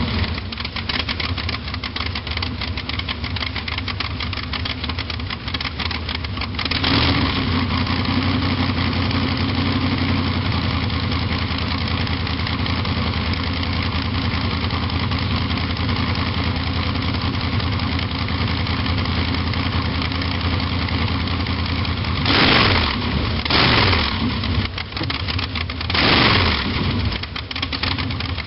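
Hot rod engine idling, its throttle blipped about seven seconds in and three more times near the end, the pitch rising and falling with each rev.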